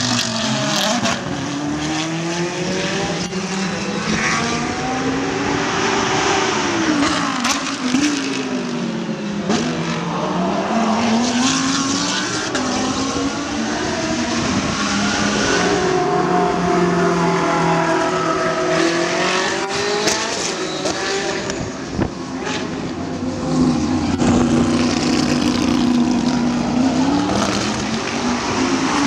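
GT race cars' exhaust at racing revs, the engine pitch climbing and dropping again and again as cars accelerate, shift and pass.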